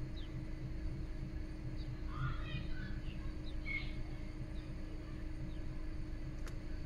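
Peugeot 308 1.6 petrol engine idling with a low, uneven throb: the hunting idle of a car with its engine warning light on. A few faint high chirps come about two to four seconds in, and a single sharp click near the end.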